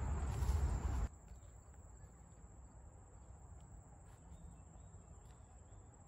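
Faint woodland ambience: a steady high-pitched insect trill, with a few faint short chirps. In the first second a loud low noise on the microphone cuts off abruptly.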